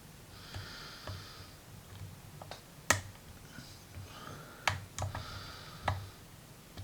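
Dimple lock pick working the pins of a Tecon 6-pin dimple lock: light scraping of the pick with a few sharp metallic clicks, the strongest about three seconds in and others near five and six seconds, as pins are picked toward the shear line.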